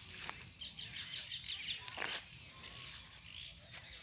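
Several birds chirping and calling over a low, even rumble, with one short knock about two seconds in.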